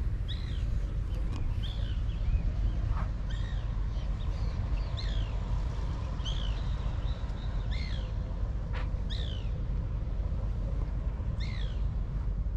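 Birds calling: short, arched chirps repeated roughly once a second, over a steady low rumble.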